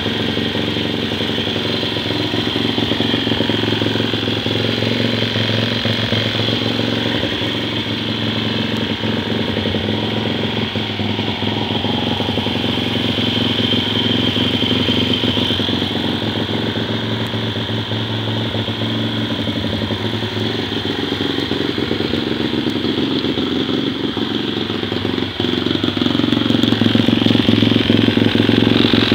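Suzuki DR-Z110 pit bike's small single-cylinder four-stroke engine running steadily at a low, near-idle speed. It gets somewhat louder about three seconds before the end.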